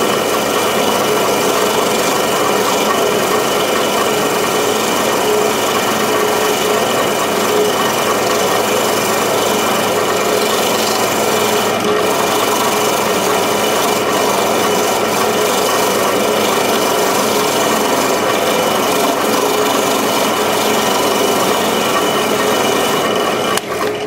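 Wire wheel spinning in a drill press, scouring the rust off a small screw held against it: a steady scratching hiss over the machine's steady hum. The scratching drops away just before the end.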